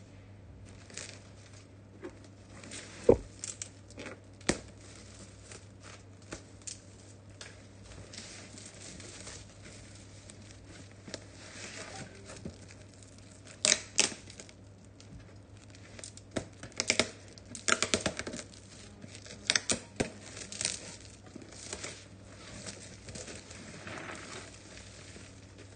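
Plastic wrapping being torn and crinkled off a cardboard box: irregular rips and crackles, with a sharp crack about three seconds in and the busiest tearing from about 13 to 21 seconds in.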